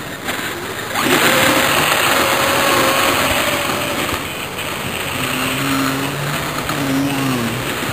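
Kyosho Blizzard DF-300 EV radio-controlled tracked snow vehicle driving on its brushless electric motor. The whine steps up about a second in and shifts in pitch as the throttle changes.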